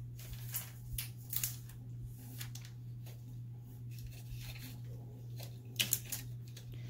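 A plastic water bottle is handled, giving scattered crinkles and clicks, with the loudest pair near the end, over a steady low hum.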